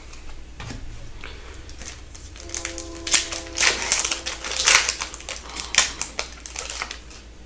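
Crinkling and rustling of hockey card packs and cards being handled, busiest in the second half.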